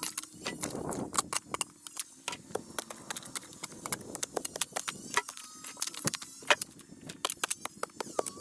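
Sped-up hand digging: a shovel biting and scraping into soil and stones, giving a rapid, irregular run of sharp clicks and clinks, several a second.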